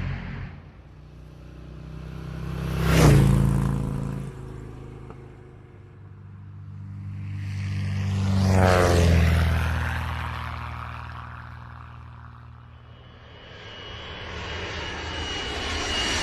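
Engines passing close by, each swelling and fading with a falling pitch as it goes past: a quick, sharp pass about three seconds in, then a slower, broader one around nine seconds. Near the end another engine sound approaches with a high, steady whine.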